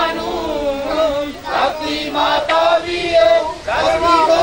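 Voices chanting a Punjabi devotional refrain together, holding long sung notes.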